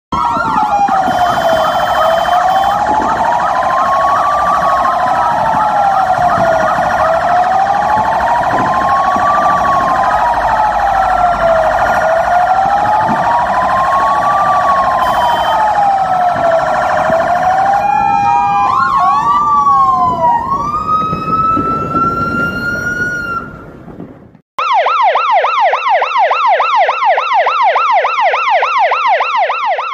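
Several fire truck sirens sound together, overlapping slow rising-and-falling wails. Partway through they break into quick yelps and die away. After a brief gap, a single fast yelping siren takes over.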